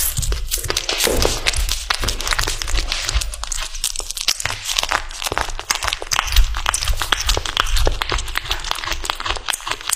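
A kitten biting and chewing raw chicken drumstick meat, close up: a dense, irregular run of wet clicks and crunches as it tears off the flesh.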